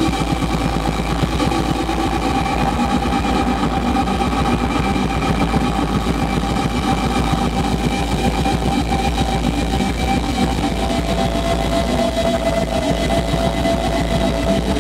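Live heavy rock band playing a loud, dense wall of distorted guitars, bass and drums, with long held tones ringing over it; a new, lower held tone comes in about two-thirds of the way through.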